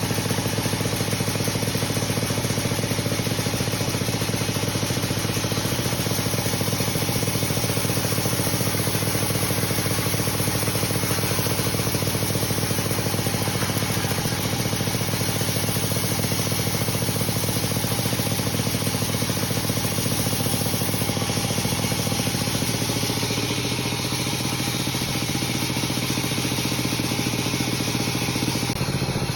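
Sawmill machinery running steadily as teak logs are sawn into boards: a constant engine-like drone with dense mechanical noise, dipping slightly in loudness and pitch about 24 seconds in.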